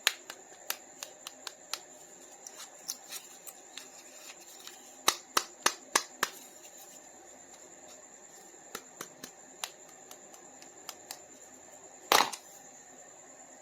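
Sharp clicks and taps of hard plastic toy pieces being handled: scattered light clicks, a quick run of five loud ones about halfway, and one heavier knock near the end, over a faint steady high whine.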